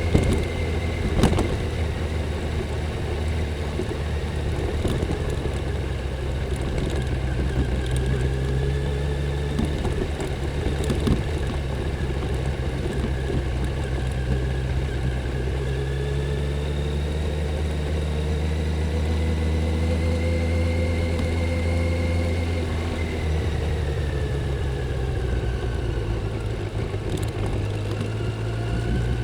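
Stock Kawasaki Z900 inline-four engine and exhaust running steadily under way, its pitch slowly rising and then easing off about two-thirds of the way through. A sharp knock sounds about a second in.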